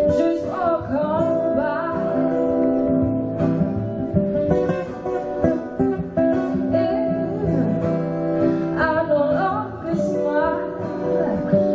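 A woman singing live over strummed acoustic guitar accompaniment.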